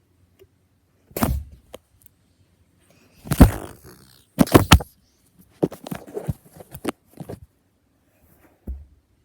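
A series of irregular knocks and clatters, as of hard objects being handled and bumped together: one about a second in, the loudest pair around three and a half and four and a half seconds, a quick cluster after that, and a last knock near the end.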